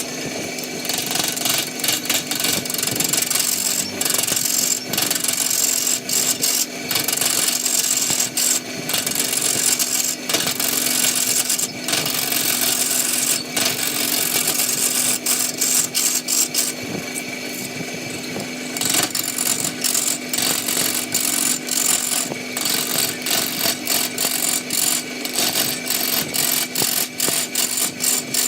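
Wood lathe running with a steady motor hum while a turning tool cuts into the spinning wood, giving a dense hissing, crackling scrape that eases off briefly a little past halfway.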